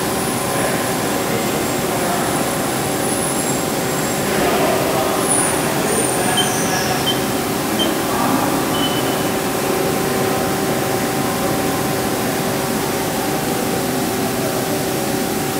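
CNC lathe running with its spindle turning: a steady machine hum with several constant tones. A few faint, short high blips come around the middle.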